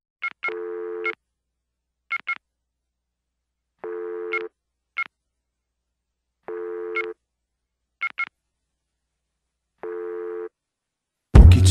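Mobile phone electronic sounds: short paired two-tone beeps alternating with half-second buzzing tones, repeating every couple of seconds with silence between. Loud music comes in near the end.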